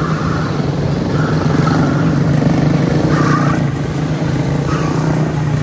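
Several quarter-midget race cars with single-cylinder Briggs & Stratton Animal engines running at racing speed around a small oval. Their engines swell louder about four times as cars go past.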